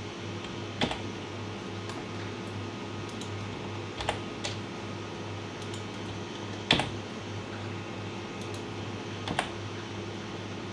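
Sparse, irregular clicks of computer keyboard keys and a mouse as editing shortcuts are pressed, about five in all, the loudest a little past the middle, over a steady low hum.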